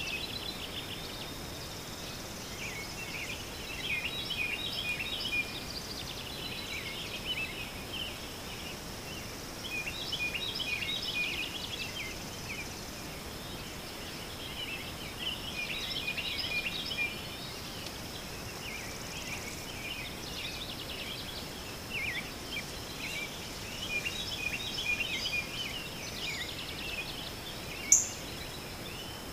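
Birds chirping and twittering in bursts every few seconds, over a steady high insect drone. One short, sharp high click near the end stands out as the loudest sound.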